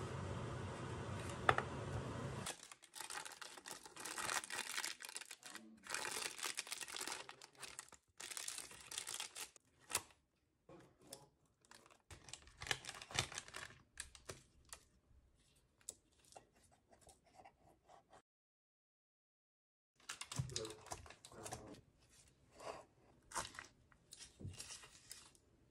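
Baking parchment crinkling and rustling as a baked rice cake is handled, a knife cutting down through the cake, and the cake being torn apart by hand: a run of short, irregular scrapes and crackles, broken by about two seconds of silence late on.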